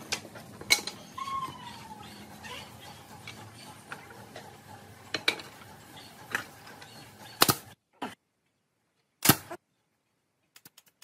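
Scattered sharp knocks and clicks of loose wooden pieces being picked up and set down, over steady background noise that cuts out about eight seconds in, leaving one louder knock and a few faint clicks.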